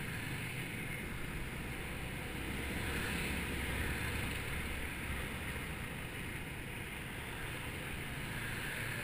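Steady riding noise from a motor scooter on the move: wind buffeting the camera microphone over the running engine and tyres. It swells a little a few seconds in.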